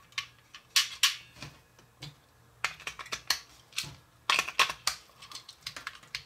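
Irregular sharp plastic clicks and taps from handling a small battery-operated toy bird as a battery is fitted into its compartment and the body is turned over, with a louder flurry of clicks about four seconds in.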